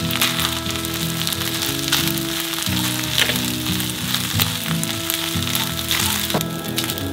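Fried rice with shrimp and scrambled egg sizzling in a hot frying pan while a spatula stirs and folds it, with short clicks of the spatula against the pan.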